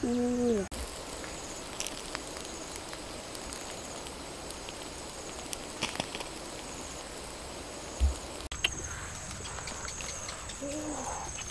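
A short falling hooting call at the very start and another near the end, over rural outdoor ambience with a steady high trill, a few sharp clicks and a dull thump about eight seconds in.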